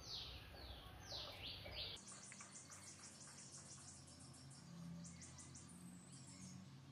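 Faint birds and insects chirping in the background: a few quick falling whistles in the first two seconds, then runs of rapid high chirps.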